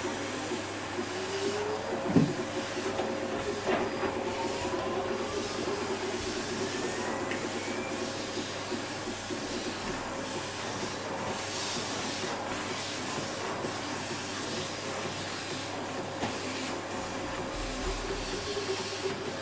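Canister vacuum cleaner running steadily with a constant hum as its floor nozzle is pushed back and forth over a rug. A single thump about two seconds in.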